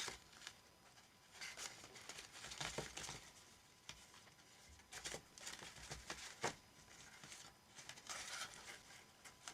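Faint, intermittent rustling of paper calendar pages being handled, with a few light taps and clicks.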